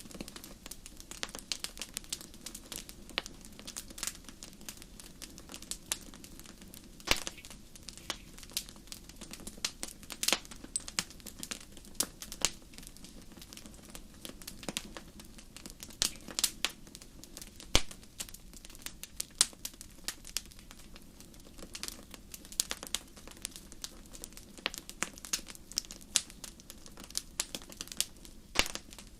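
Wood fire in a fireplace crackling: irregular sharp pops and snaps, several of them louder, over a low steady rush of the flames.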